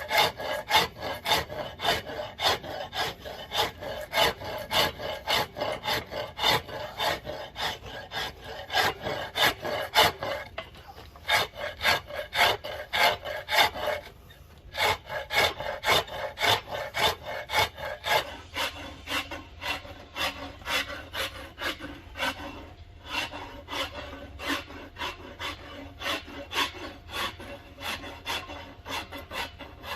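A hand file scraping back and forth along a hickory axe handle, shaping the wood in steady strokes about two a second. It pauses briefly twice.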